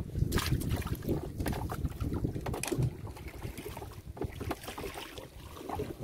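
Gill net being hauled by hand into a small boat: irregular splashes, drips and knocks against the hull, with wind rumbling on the microphone.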